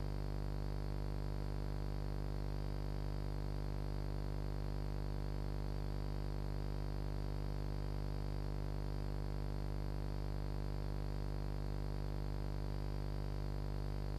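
Steady electrical mains hum, a low buzz of many even tones stacked above a 50 Hz fundamental, with no other sound.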